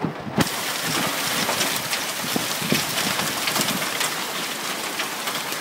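Hailstones pelting down on a lawn and deck: a dense hiss full of sharp ticks from individual stones striking. There is a knock about half a second in, after which the sound turns brighter.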